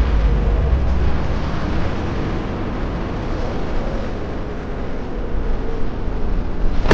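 Steady low rumbling noise, heavier for the first second and a half and then settling to an even level.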